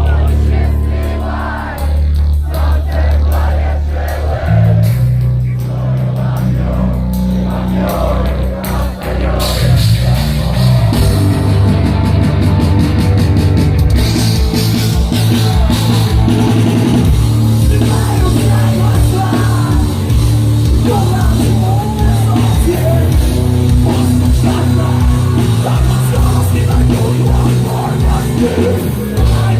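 Rock band playing live: a heavy, low riff with a sung vocal line, the full drums and cymbals coming in about ten seconds in.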